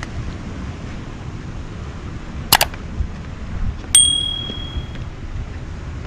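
Two sharp clicks in quick succession, then a single bright ding that rings for about a second, over a steady low rumble.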